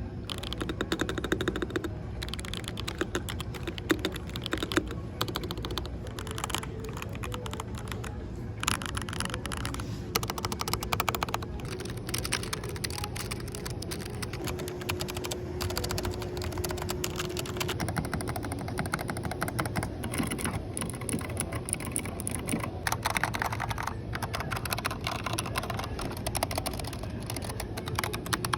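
Typing on a series of display computer keyboards, mechanical and membrane models tried one after another, in short runs of rapid key clicks. The click sound changes from one run to the next as a different keyboard is tried.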